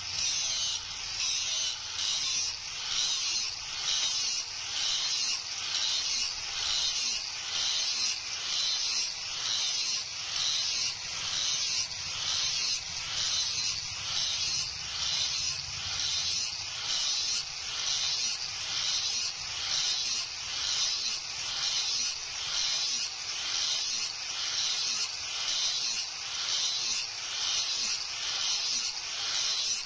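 Hand-held angle grinder grinding the flat of a leaf-spring steel kukri blade clamped in a vise: a steady grinding hiss over the motor's hum, swelling and fading with each pass, a little more than once a second.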